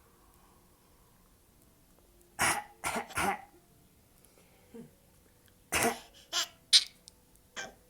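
A person coughing in short, sharp coughs: three in quick succession about two and a half seconds in, then another run of three or four around six seconds in.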